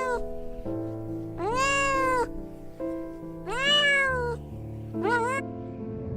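A cat meowing repeatedly: several drawn-out meows that rise and then fall in pitch, with a shorter one near the end, over soft background music.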